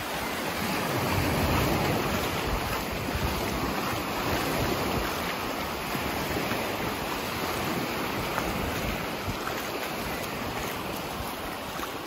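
Small surf waves washing up and running back over the sand in a steady wash, with wind buffeting the microphone.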